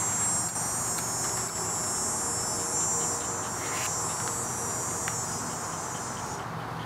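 Insects buzzing: a steady, high-pitched drone that stops near the end.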